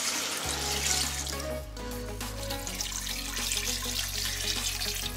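Chicken stock pouring in a steady stream from a glass measuring cup into a metal pot of chopped vegetables, over background music.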